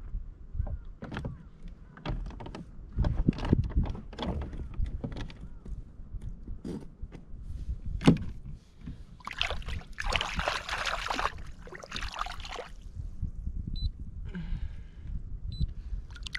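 Knocks and clicks of gear being handled on a plastic fishing kayak, over a steady low rumble of wind on the microphone, with a rushing burst of noise lasting about three seconds near the middle.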